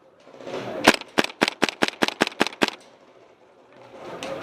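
Airsoft gun firing a quick string of about nine sharp shots: a single shot, then eight more at roughly five a second.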